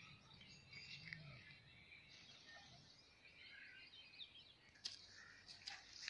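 Faint scattered bird chirps over quiet rural background noise, with a few short clicks near the end.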